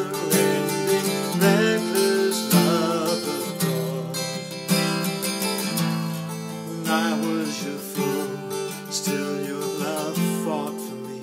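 A man singing solo over his own strummed acoustic guitar chords.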